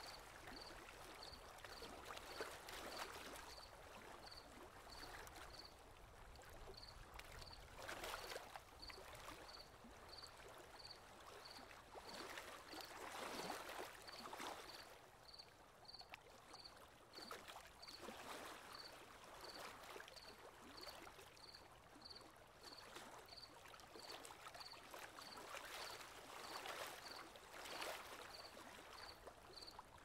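Faint, gentle surf with waves washing in every few seconds, under an insect chirping in a steady rhythm of short, high chirps, a little under two a second.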